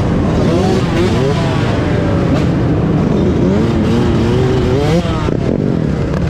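Off-road vehicle engines revving, their pitch repeatedly rising and falling over a steady engine drone.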